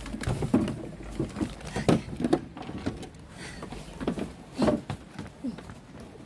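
Canoe paddle strokes: irregular splashes and knocks of the paddle in the water and against the hull.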